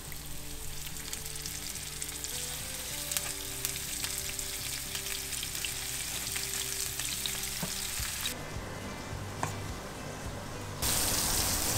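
Cornstarch-dredged queen snapper fillets sizzling in hot sunflower oil in a nonstick pan as they are laid in, over soft background music. The sizzle thins about eight seconds in and comes back louder near the end.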